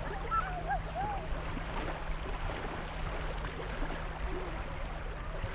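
Lake water lapping and sloshing in the shallows around wading legs and hands that hold a carp under the surface to release it.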